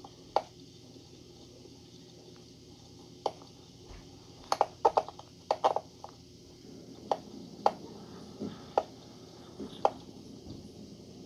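Airsoft guns firing single shots at irregular intervals, a quick cluster of pops around the middle, over a low steady background hum.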